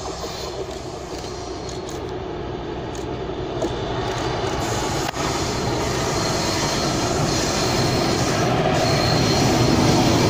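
VR Class Dv12 diesel-hydraulic locomotive hauling a short freight train of covered wagons, its engine and the rolling wagons growing steadily louder as the train approaches and draws level.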